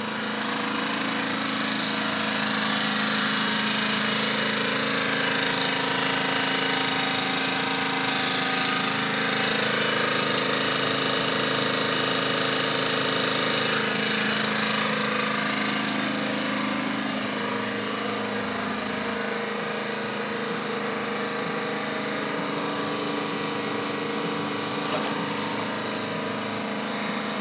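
Generac iX2000 digital inverter generator's small four-stroke engine running steadily on its first start-up, getting slightly louder a few seconds in and easing back down after about 16 seconds.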